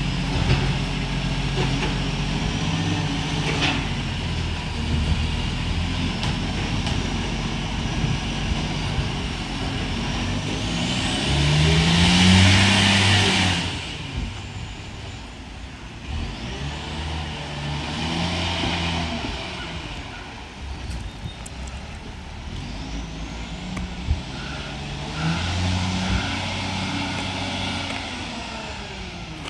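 Euro 6 diesel garbage truck engine running with an exhaust leak that gives it an unusual sound. It revs up and drops back three times, about 12, 18 and 26 seconds in; the first rev is the loudest and carries a hiss.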